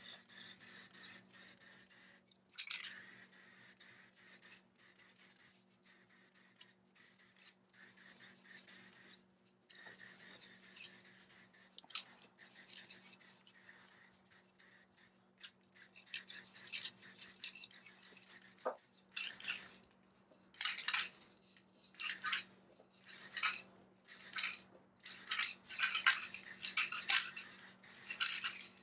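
Aerosol spray can worked with a trigger handle, giving many short hissing bursts of spray in quick succession. The bursts come more rapidly near the start and are longer and more regular near the end.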